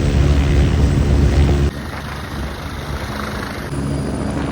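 Aircraft engine and propeller drone, a loud steady hum of several even tones. The sound switches suddenly about 1.7 seconds in and again near 3.7 seconds, as between separate shots of aircraft.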